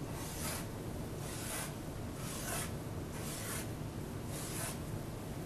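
Pen scratching on paper while drawing circles: five short strokes, about one a second.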